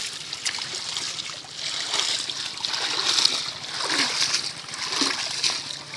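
Shallow water splashing and pattering as a fine-mesh net holding small fish is worked and gathered.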